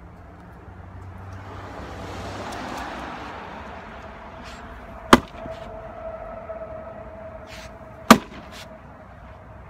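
Splitting maul striking a firewood round on a chopping block twice, two sharp cracks about three seconds apart, the second the louder. Before them a rush of noise swells and fades over the first few seconds, and a faint steady tone lingers under the strikes.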